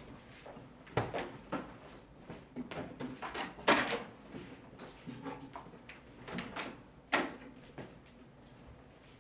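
Knocks and bumps of a guitar amplifier head being handled and set on a speaker cabinet, with a sharp knock about four seconds in and another about seven seconds in.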